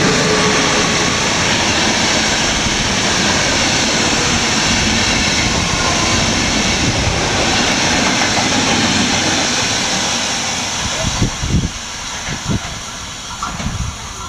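Passenger train hauled by an EU44 (Siemens Taurus) electric locomotive running through a station at speed: a loud, steady rush of wheels and air as the coaches pass close by. After about ten seconds it fades as the last coach draws away, with a few thumps near the end.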